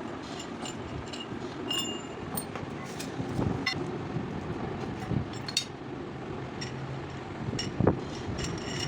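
Scattered metallic clinks and taps, some ringing briefly, with a louder knock near the end, over a steady background hum of traffic or machinery.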